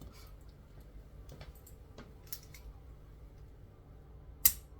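A single sharp crack near the end, after a few faint clicks: the pop of the neck's joints as the chiropractor thrusts during a cervical adjustment.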